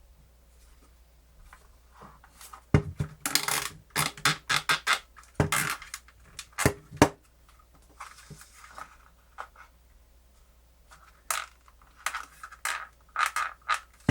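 Sharp plastic clicks, knocks and scraping from a portable cassette player's case and buttons being handled and pressed together as it is reassembled, in two spells about three seconds in and again near the end.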